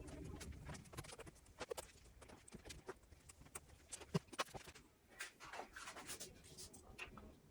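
Scattered light clicks and taps at an irregular pace, one sharper knock about four seconds in, with a faint low hum underneath: the sound of small parts and tools being handled during a repair.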